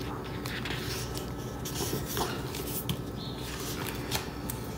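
Pages of a hardcover book being turned by hand: paper rustling and flicking, with a few light clicks.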